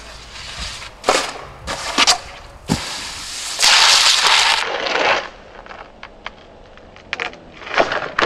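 Snowboard knocking and scraping: a few sharp clacks, then about a second of loud, harsh scraping of the board over pavement, with a few faint clicks near the end.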